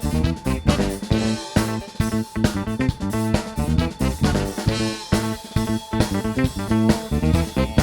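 Live band playing an instrumental passage: guitar, bass guitar and drum kit with a steady beat.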